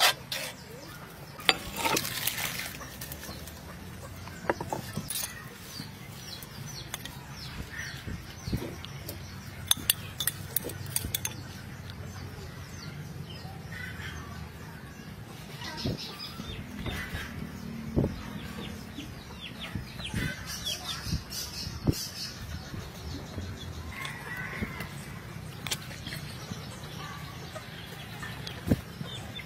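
A metal ladle and spoon clink and scrape against an aluminium pot and serving bowls in a string of short, irregular knocks while sauce is stirred and spooned.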